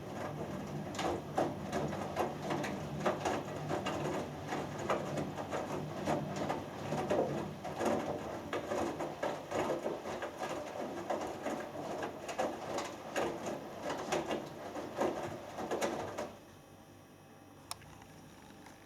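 Hoover Dynamic Next washing machine in its main wash, the drum turning with its motor humming while the wet load and water slosh and splash inside. The drum stops suddenly about 16 seconds in, and a single short click follows near the end.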